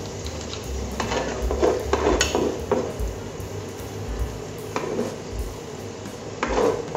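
Wooden spoon stirring thick chili spice paste as it sautés in an enamel pot, with irregular scrapes and knocks against the pot and a faint frying sizzle.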